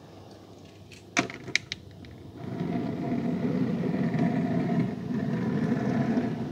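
Die-cast Lightning McQueen toy car clicking a few times against a hard plastic surface as it is set down about a second in, then its small wheels rolling with a steady rumble as it is pushed along for about four seconds.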